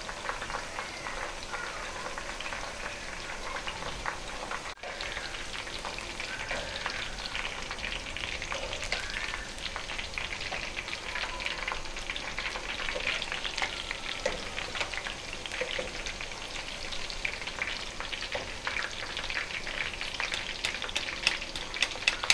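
Cut okra crackling and sizzling as it fries in plenty of hot oil in a steel karahi, while a wire skimmer scoops the pieces out. There are a few louder clicks near the end, where utensils knock against the pan.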